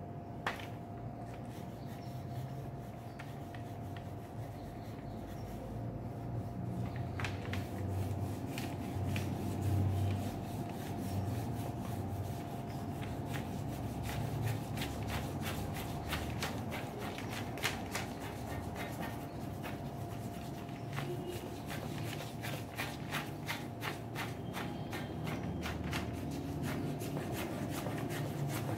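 Pencil scratching across drawing paper in quick hatching strokes, shading a drawing; the strokes are sparse at first and come thick and fast from about seven seconds in. A faint steady tone runs underneath.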